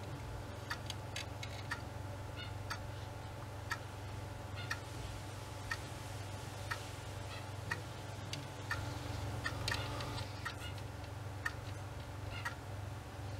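Faint, regular ticking about once a second over a low steady hum.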